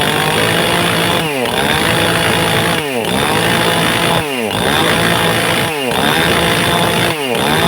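Chainsaw running at full throttle and pressed again and again into a stone. Its pitch drops sharply and climbs back about every second and a half as the chain bogs down and frees up.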